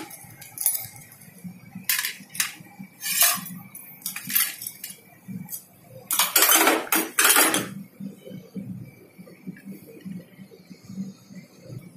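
Metal clinking and clattering as a stovetop sandwich maker is opened and the toasted sandwich is tipped onto a steel plate: several sharp clinks, then a longer, louder clatter about six to seven and a half seconds in.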